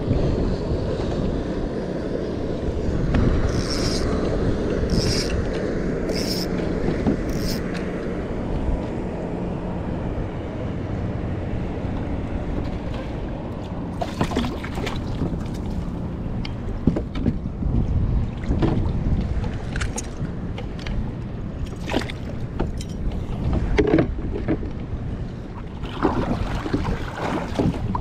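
Wind buffeting the microphone and choppy water lapping against a kayak hull. There are four short, high ticks about four to seven seconds in, and scattered light knocks and splashes in the second half.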